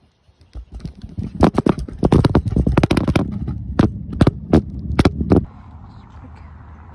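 Kick scooter's small wheels rolling over a sidewalk: a loud rattling rumble with many sharp clacks as the wheels cross the paving joints, dropping to a quieter steady rolling noise about five and a half seconds in.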